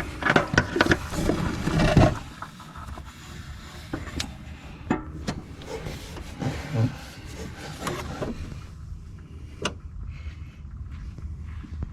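Tools and metal parts being handled during an oil change: a rapid flurry of clinks, knocks and scraping for about two seconds, then scattered single clicks over a steady low hum.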